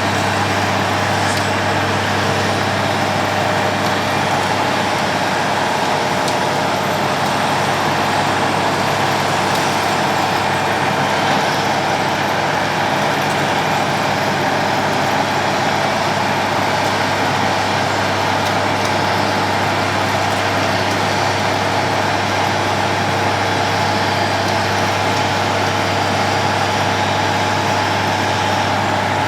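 Road planer milling the road surface: a heavy diesel engine running steadily with a constant noise over it, unbroken throughout.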